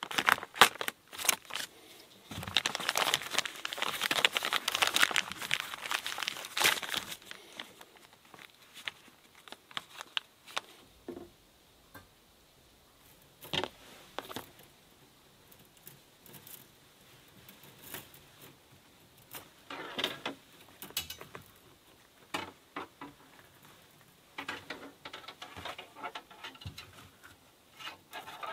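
A plastic bag crinkling loudly for the first several seconds as a coil of 14-gauge trapper's wire is drawn out of it, then scattered light clicks and short rustles of the wire being handled.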